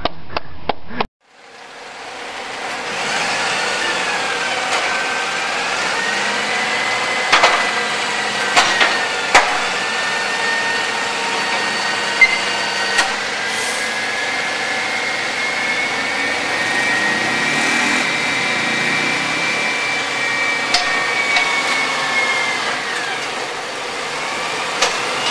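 Hydraulic lifting gear of a straddle-type car-lifting tow truck whining steadily over the running truck, with several sharp metallic clicks and knocks partway through; the whine dies away near the end.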